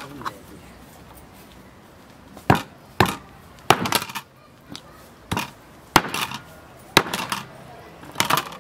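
Small hatchet chopping pieces of a large fish on a wooden cutting board: about eight sharp chops at uneven intervals, starting a couple of seconds in.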